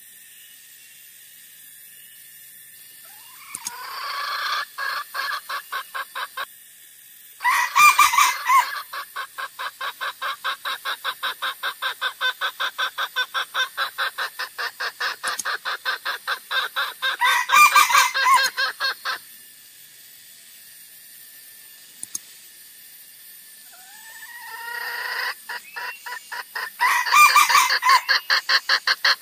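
Junglefowl lure-call recording: three bouts of rapid clucking, about five clucks a second, with a few louder short calls among them and quiet gaps between the bouts.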